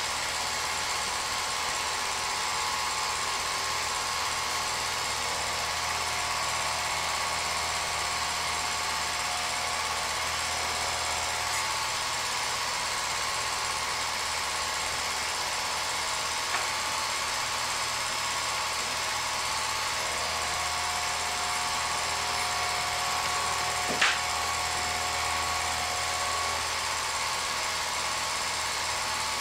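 Film projector running: a steady mechanical whir with a constant high hum, a small click just past the middle and a sharper tick near the end.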